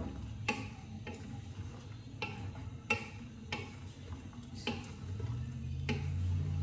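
Wooden spoon stirring meat and mushrooms in a stainless steel pot, knocking against the pot a little under twice a second, over a light sizzle of frying.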